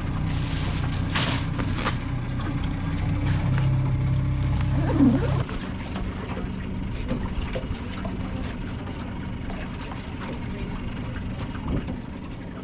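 Boat motor running steadily. About five seconds in it cuts suddenly to a quieter, lower hum that carries on.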